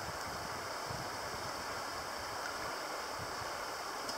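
Steady rushing of a flowing creek, an even wash of water sound with no breaks.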